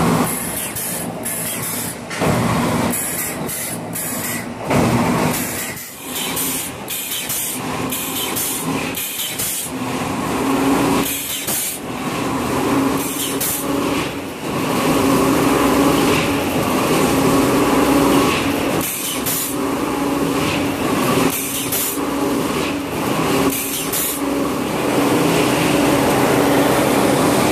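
Rotary log debarker running, a log turning against the knife as its bark and outer layer are peeled off as core veneer. A steady machine hum, louder from about halfway through, with many short bursts of noise over it.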